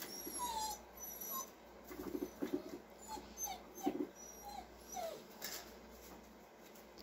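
Chihuahua puppy whimpering in a string of short, high, sliding whines, with a few short low grunts about two and four seconds in.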